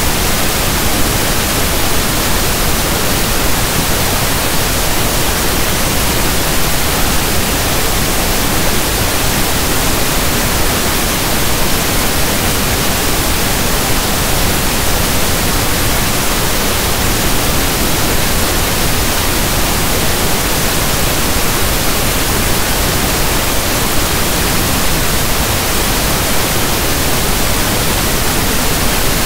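Steady generated pink noise: an even, unbroken static hiss, like a radio station not in tune.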